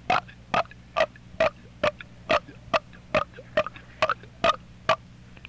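A person gulping air in rhythmic clicking swallows, a little over two a second, stopping about five seconds in: loading up air for a burp.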